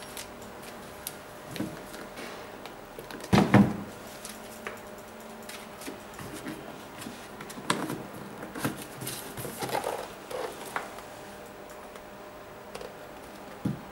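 Hands handling a cardboard shoebox and its contents: scattered cardboard knocks and paper rustling, with one louder thump about three and a half seconds in. The lid is opened and the tissue paper inside rustles a few seconds later.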